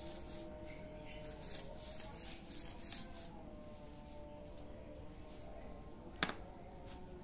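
Faint rustling and scraping of a shredded plastic-strip toy on a stick as a kitten paws and bites at it on concrete, with one sharp click about six seconds in.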